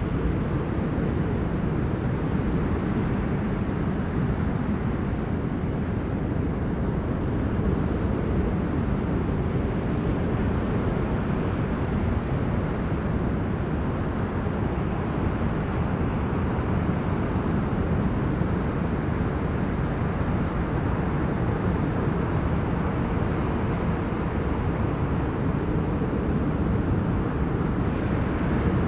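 Heavy storm wind buffeting the microphone in a steady low rumble, with the wash of breaking sea waves beneath it.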